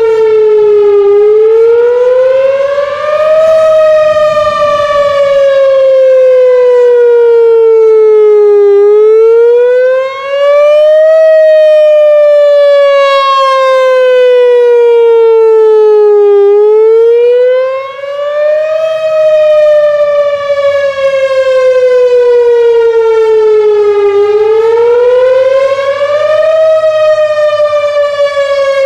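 Whelen 4004 electronic outdoor warning siren sounding its wail/attack tone on a test: a loud tone that rises for about two and a half seconds and then falls for about five, over and over, roughly every seven to eight seconds.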